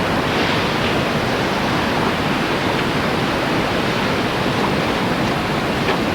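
Steady rushing wash of ocean surf.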